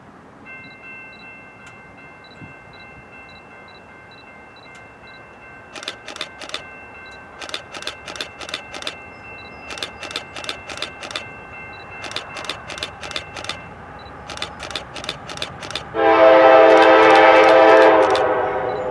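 A railroad grade-crossing bell rings steadily. Then a train's wheels click in rhythm over rail joints. About 16 seconds in, a diesel locomotive's air horn sounds a loud long blast that fades near the end.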